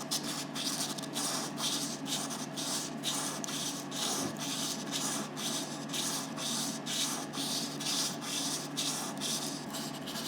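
An opal stone rubbed by hand back and forth on fine-grit dry sandpaper, a rhythmic scratching of about three strokes a second.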